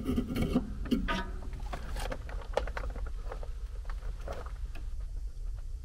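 Scattered light clicks and rattles of hands handling parts inside an opened furnace cabinet, over a low steady hum.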